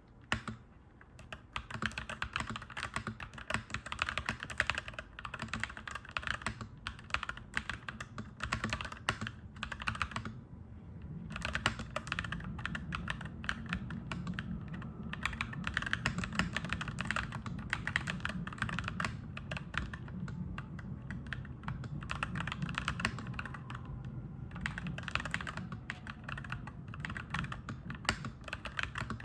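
Clacky mechanical keyboard being typed on steadily in quick runs of keystrokes, with a brief pause about a third of the way in. A low steady rumble sits under the typing and grows louder after the pause.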